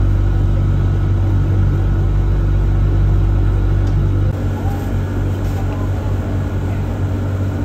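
Steady low hum and rumble of a moving vehicle, heard from inside its cabin; the rumble turns rougher about four seconds in.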